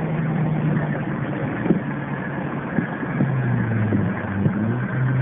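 Car engine and road noise heard from inside the cabin, holding a steady drone that settles to a lower pitch about three seconds in.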